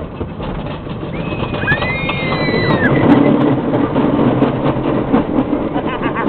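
Wooden roller coaster train running along its track, a steady rushing rumble with wind blowing past the open car, getting a little louder about halfway through. A high-pitched wail rises and falls briefly about a second in.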